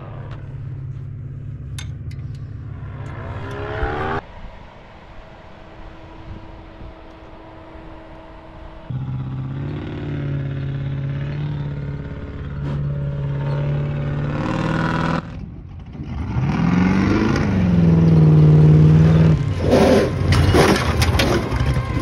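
12-valve Cummins inline-six diesel running, quieter for a few seconds, then revved up and down several times, the biggest rev about three-quarters of the way through. It runs just after a sticking injector was freed, in the hope it is back on all six cylinders.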